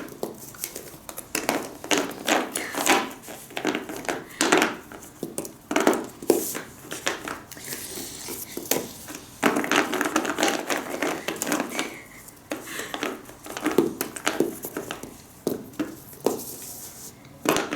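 Colouring pens knocking and clattering on a tabletop, with paper crinkling, in a run of irregular clicks and rustles.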